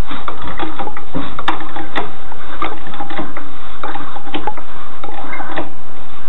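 Car scissor jack being cranked by hand to raise the car, with irregular metallic clicks and knocks about once or twice a second as the handle turns.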